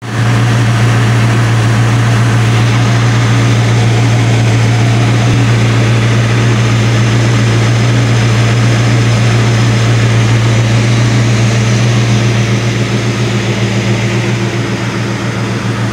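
1973 Plymouth GTX's stock 440 big-block V8, on its factory exhaust manifolds without headers, idling steadily, heard from over the open engine bay.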